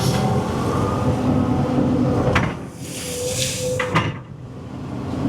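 Cat 320 EL excavator running under hydraulic load, with a rushing hiss that cuts off with a sharp clunk about two and a half seconds in, comes back, and cuts off with a second clunk near four seconds.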